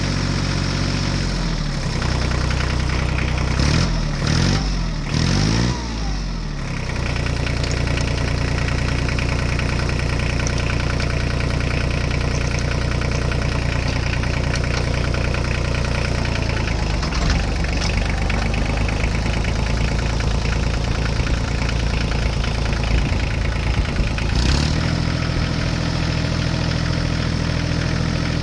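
Diesel tractor engine running, revved up and down several times a few seconds in, then settling back to a steady idle. Its note shifts again near the end.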